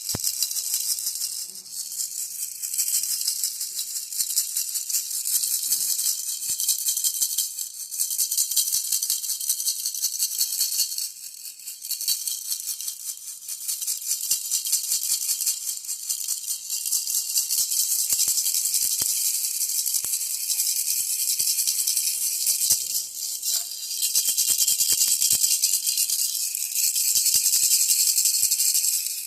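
Baby rattle shaken continuously, a dense, high-pitched rattling with brief lulls about eleven seconds in and near the end.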